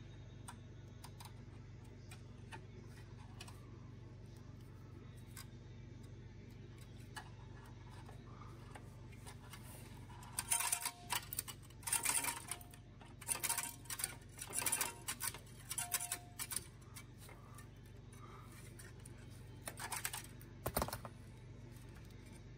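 Stainless steel safety wire being twisted and worked with safety-wire pliers at the brake caliper: after about ten seconds of low hum, several short bouts of metallic clicking and scraping, then one more bout and a single sharp click near the end.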